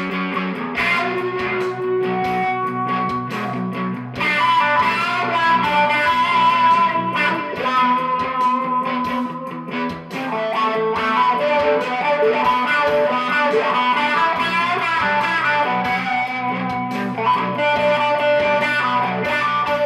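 Background music: electric guitar with a steady beat.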